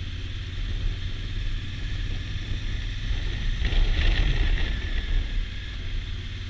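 Wind rushing over the microphone at road speed on a Honda Africa Twin CRF1000L, with the bike's parallel-twin engine running steadily beneath it. The rush grows louder for about a second a little past the middle.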